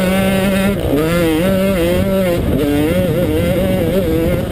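Yamaha YZ125 two-stroke single-cylinder engine at race pace, its revs rising and falling repeatedly as the rider works the throttle and gears.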